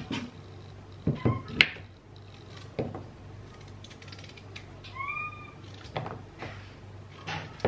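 Small kitchen knife cutting carrots on a plastic cutting board: a handful of separate sharp chops, the loudest about one and a half seconds in. A short high call that rises and falls is heard around the middle.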